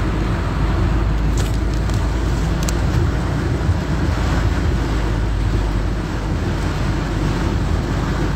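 A motor scooter riding through a flooded street in heavy rain: a steady low engine and road rumble under a wash of water and rain noise.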